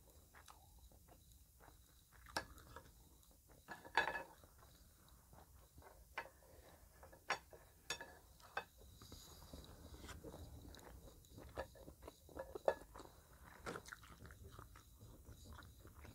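Close-up chewing and wet mouth sounds of someone eating spicy meatballs and rice, broken by many short sharp clicks and smacks, loudest about four seconds in and again near the thirteen-second mark.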